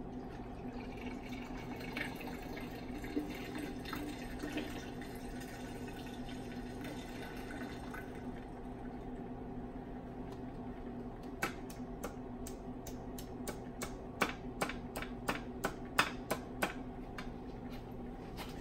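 Magnetic stirring hot plates running with a steady hum as stir bars swirl the nutrient agar liquid in the glass flasks. From about halfway in, a run of sharp clicks and taps sounds over the hum.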